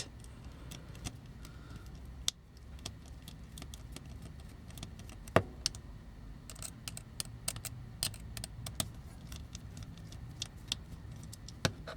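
Irregular small clicks and taps of tools and hard toy parts being worked apart by hand, with one sharper knock about five seconds in and a quick run of clicks soon after.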